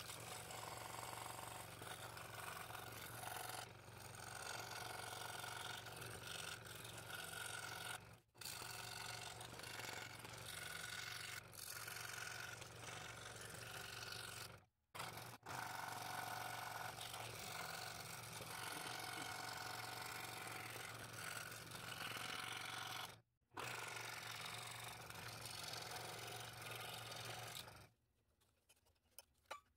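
Scroll saw running, its reciprocating blade cutting small slots in a thin patterned workpiece, over a steady low motor hum. The sound stops abruptly three times and falls away near the end.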